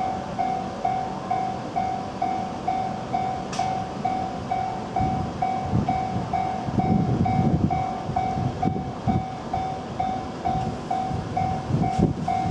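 Japanese railway level-crossing warning bell ringing, an even electronic ding about twice a second. From about five seconds in, a train passes over the crossing with a rumble and uneven clattering of wheels over the rail joints.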